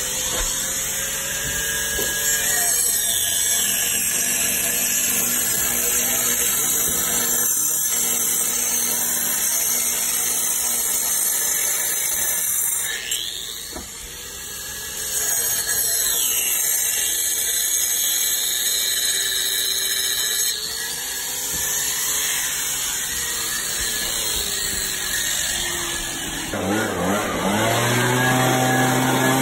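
Angle grinder with a diamond blade running and cutting a groove about an inch deep into a brick chimney, a high steady whine that dips briefly partway through: the slot for counter flashing. Near the end a second, lower-pitched handheld power tool motor starts up.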